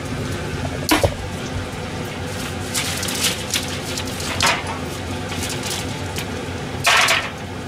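Stainless-steel wire cooling rack and its metal tray being handled: a few short, sharp metallic clatters, the longest and loudest near the end, over a steady low hum.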